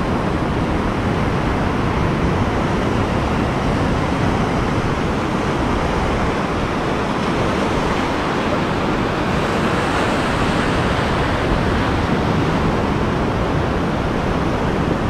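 Ocean surf breaking offshore and foam washing up the beach: a steady rushing noise with no let-up.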